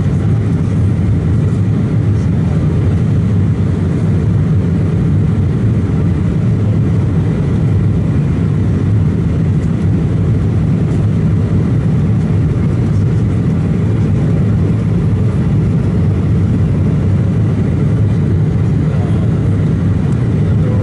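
Steady cabin noise inside an Embraer 190 climbing out after takeoff: a deep, even roar of airflow and the jet's CF34 turbofan engines, with a faint high steady whine above it.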